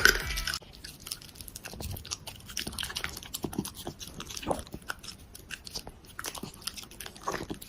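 A dog chewing, with a run of short, irregular crunches.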